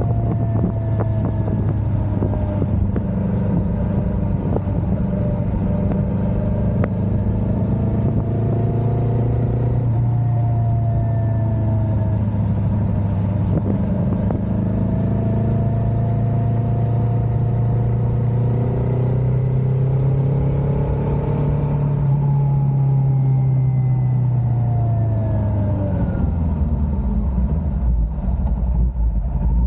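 Kawasaki Ninja 400's parallel-twin engine running under way, its pitch rising and falling with the throttle. After about 22 seconds the pitch falls and stays lower as the bike slows.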